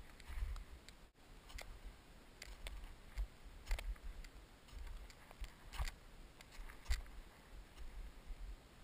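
Footsteps crunching on hard-frozen glacier snow, sharp irregular crunches roughly once a second, with low thumping on the microphone.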